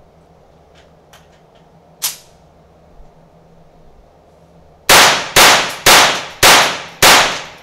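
Five quick shots from a .22 LR upper on an AR-15 lower, about half a second apart, each ringing briefly in the indoor range. Before them come a few light clicks of handling and one sharper click about two seconds in.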